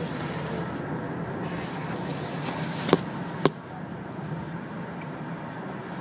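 Steady road and engine noise inside a moving car's cabin, with two sharp knocks about half a second apart near the middle.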